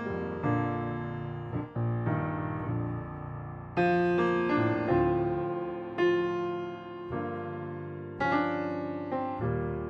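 Solo piano playing a slow piece: chords struck and left to ring, a new one about every second.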